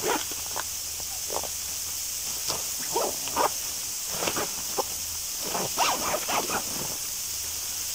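Canvas tent door flap being pulled shut and fastened by hand: short, irregular rustles and scrapes of fabric over a steady background hiss.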